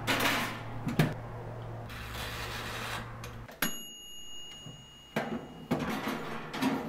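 Toaster oven being handled: the metal door and rack clatter as tongs go in, and a low hum cuts off with a click about three and a half seconds in, followed by a short bell-like ding that fades over a second or so as the timer knob is turned. More knocks of the door and tongs follow.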